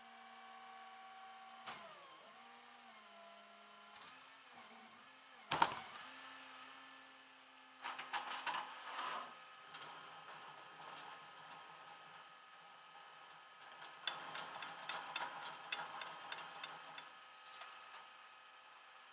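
Tow truck loading a pickup: an engine running steadily, its pitch shifting down about two seconds in, with a sharp metal knock near six seconds and two spells of quick metallic clattering and rattling from the loading gear.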